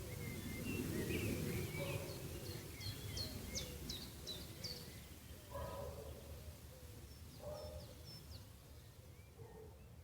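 Birds chirping over a steady low background rumble, with a run of short, high, quickly falling chirps in the middle and a few lower calls.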